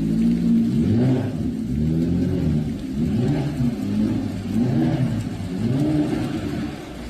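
Car engine revving up and dropping back again and again, about once a second, some six times, after idling steadily.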